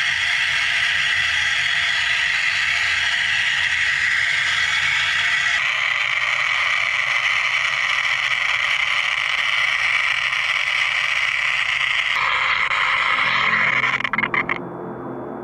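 Ona AB35 wire EDM cutting stainless steel under deionized water with brass wire: a loud, steady hiss of spark machining and flushing water. It shifts abruptly twice, then breaks up and drops off near the end, leaving a faint steady high tone.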